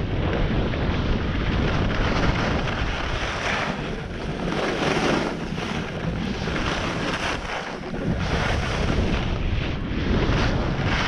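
Wind buffeting the microphone of a skier moving downhill, with the hiss and scrape of skis over packed snow swelling and fading through the turns.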